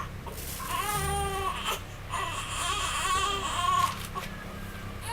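An infant crying in several separate cries, one after another, heard over a video-call line.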